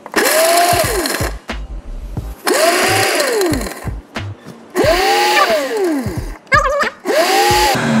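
Bravomix professional blender crushing a jar of plain ice on its ice-crush program, which runs in pulses. The motor spins up and winds down four times, each burst about a second long with a whine that rises then falls.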